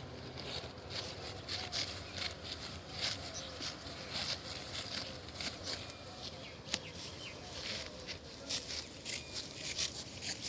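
Rice stalks being cut and gathered by hand: a string of crisp, irregular swishing and crunching strokes, about one or two a second.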